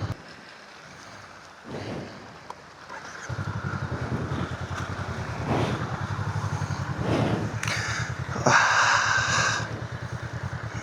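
Motorcycle engine running with a rapid pulsing beat. It falls away at the start and picks up again about three seconds in. Near the end comes a loud burst of rushing noise about a second long.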